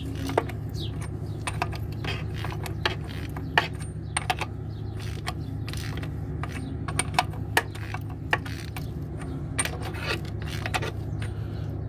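Ratchet and socket clicking irregularly as bolts are run in a thread at a time, drawing a seal-installer plate onto the crankshaft to press in the rear crankshaft seal. A steady low hum runs underneath.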